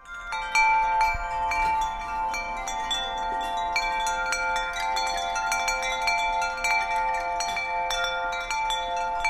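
Chimes tinkling: many light metallic strikes over a dense cluster of steady ringing tones.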